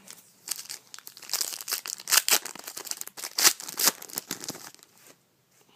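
A trading-card pack's wrapper being torn open and crinkled, a busy crackling rustle with sharp crinkles that dies away about a second before the end.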